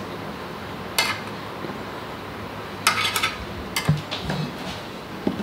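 Utensils clinking against dishes and lunch-box containers as food is packed: a sharp clink about a second in, a quick cluster of clinks around three seconds, and another just before four seconds, over a low steady hum.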